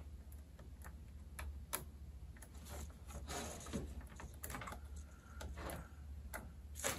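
Scattered light clicks and taps of multimeter test probes and leads being handled and touched onto the terminals of a circuit trainer board, with a sharper click near the end, over a low steady hum.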